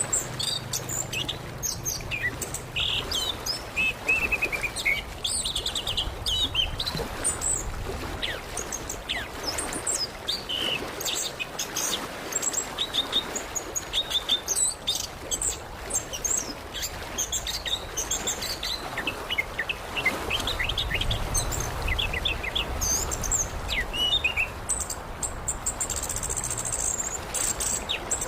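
Orange-headed thrush singing a long, unbroken run of varied, quick whistled phrases and trills over a steady rushing background.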